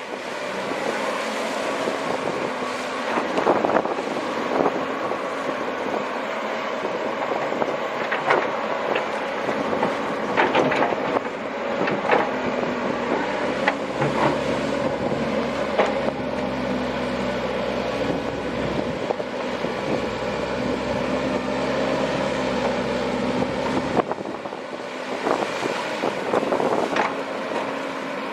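Komatsu PC130 excavator's diesel engine running steadily under working load, with a deeper engine note from about halfway through for several seconds, and scattered knocks and clanks from the machine working.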